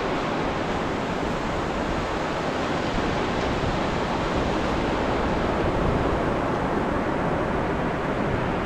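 Ocean surf washing onto the shore: a steady, continuous wash of wave noise that swells slightly about six seconds in.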